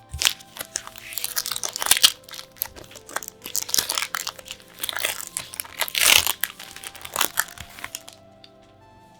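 Crinkly trading card packaging crumpled and torn by hand: dense crackling and crunching, loudest about two and six seconds in, stopping about eight seconds in. Soft background music plays underneath.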